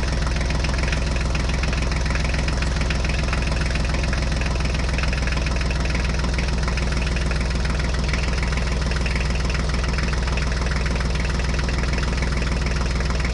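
Tractor engine idling steadily with an even, rapid beat, a recorded engine sound laid over the toy scene and unchanged across the picture cuts.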